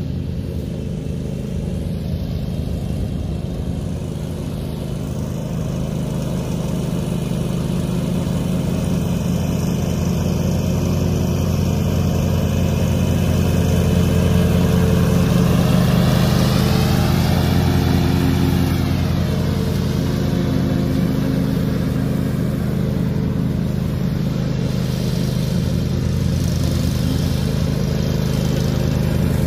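Cub Cadet XT2 riding mower's 726 cc Kawasaki V-twin engine running steadily while mowing. It grows louder through the middle, with a slight rise and fall in pitch as it passes closer.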